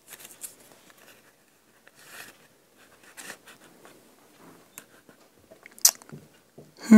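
Paper and small craft pieces handled on a work table: soft, scattered rustles and scrapes, with one sharp click about six seconds in.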